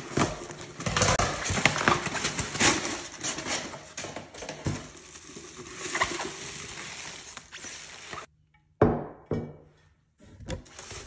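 Plastic mailer bag and bubble wrap crinkling and rustling with scattered clicks and taps as a package is unwrapped. After a brief pause about nine seconds in comes one sharp knock.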